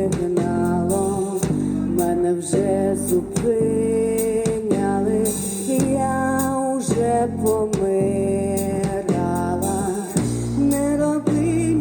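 Live psychedelic rock band playing a song: a sung melody in held notes over guitar, bass and a steady drum beat.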